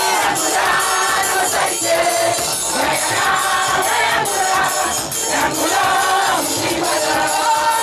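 Group singing a lively gospel praise song in chorus, with a steady beat of clapping and shaken percussion.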